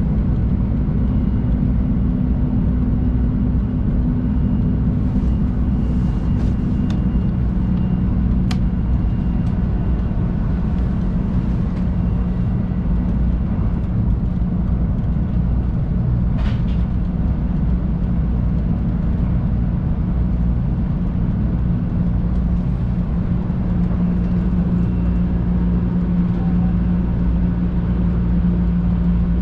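Cabin noise of a 500 series Shinkansen running at speed: a steady low rumble with a constant hum whose pitch drops slightly about eight seconds in, and a few faint clicks.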